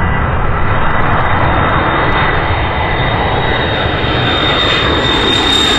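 Boeing E-3 Sentry AWACS's four TF33 turbofan engines running at approach power as the jet passes low overhead: a loud steady jet rumble with a thin high whine, the hiss growing brighter near the end as it comes closest.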